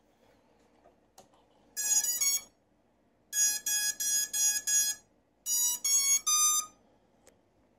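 FPV racing quadcopter beeping: a quick burst of short electronic beeps about two seconds in, then a run of six even beeps, then four beeps stepping up in pitch near the end.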